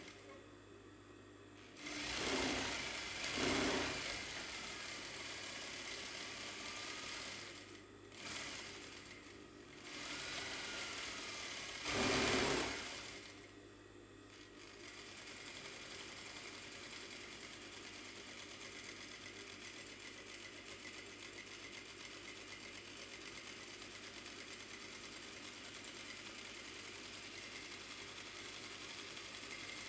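Gemsy GEM8900 industrial sewing machine stitching through denim. It runs in several short spurts in the first half, the loudest about twelve seconds in, then runs steadily with a fast, even stitching rhythm from about halfway through.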